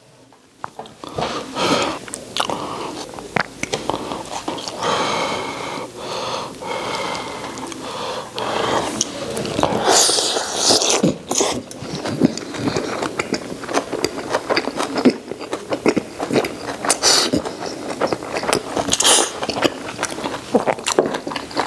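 A man biting and chewing a roast-duck pancake wrap with crisp Qianlong cabbage (raw napa cabbage in sesame-paste dressing), picked up close by a clip-on microphone: irregular wet crunching and chewing clicks, starting about a second in, with a few louder crunches.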